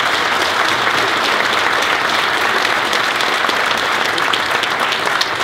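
Audience applauding: many hands clapping steadily at full strength.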